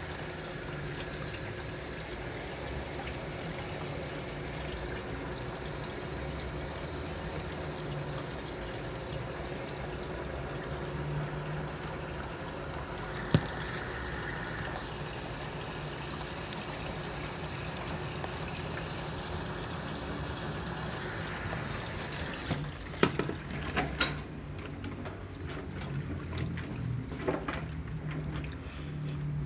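Electrolux LT09B top-loading washing machine filling its tub with water, a steady rush of water running in. About two-thirds of the way through the rush drops away, and a few sharp clicks and knocks follow.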